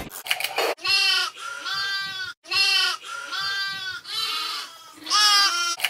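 Bleating calls, about five in a row, each drawn out and arching up then down in pitch, with short gaps between them.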